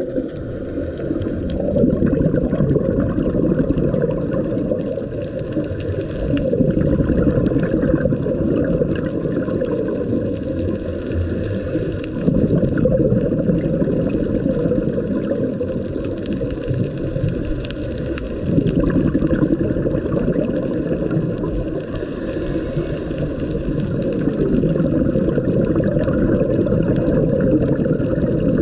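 Muffled underwater noise picked up by a camera in a waterproof housing during a dive: a steady low rumble and wash of water that swells every few seconds.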